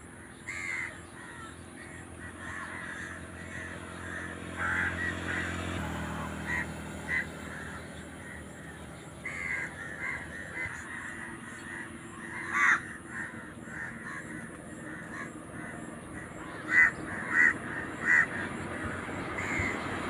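Crows cawing again and again, with a run of loud caws near the end, over a steady low hum.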